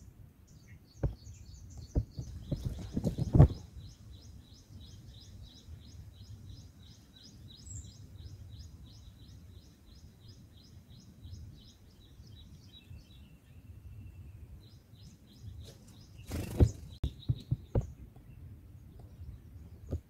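A small bird chirping in a rapid, even series of high notes, about four a second, that pauses briefly about two-thirds of the way through. Low thumps and rustles come near the start and again near the end, louder than the chirping.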